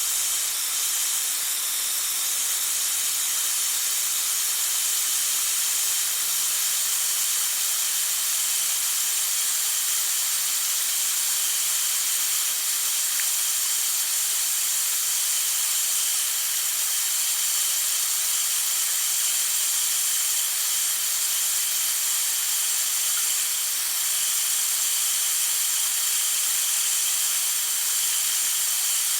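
Water hissing steadily out of a leaking pipe, an even high-pitched hiss with no separate drips.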